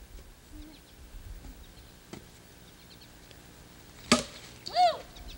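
A bat hitting a ball off a batting tee: one sharp hit about four seconds in, followed by a short high call.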